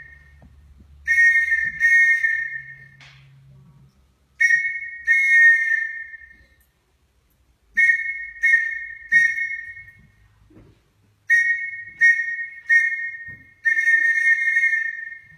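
A whistle blown in Morse code: short and long blasts in four groups separated by pauses, about a dozen blasts in all, the last one long.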